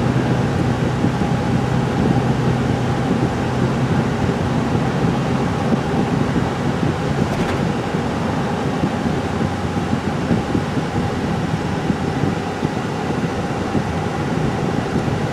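Steady road and engine noise inside a moving car's cabin, an even rushing hum with a low drone underneath.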